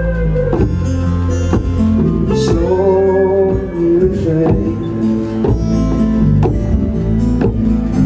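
Live band music in an instrumental passage between vocal lines: acoustic guitar strumming with a hand drum struck in a steady rhythm.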